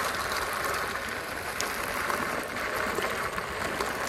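Electric unicycle tyres rolling over a loose gravel track: a steady gritty hiss, with a few small scattered clicks of stones.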